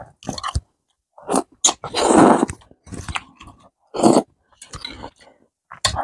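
A man eating noodles close to the microphone: irregular chewing and mouth noises, the loudest a longer noisy burst about two seconds in.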